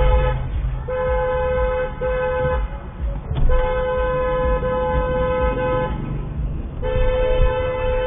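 A car horn honking in long, steady blasts, one pitch, three times with brief breaks inside each blast, over a low rumble of traffic.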